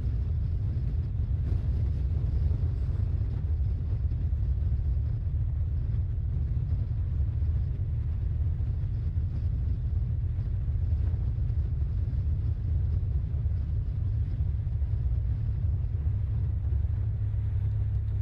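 Steady low rumble of wind and road noise from a vehicle carrying the camera alongside cyclists at riding speed. A steadier low hum comes in near the end.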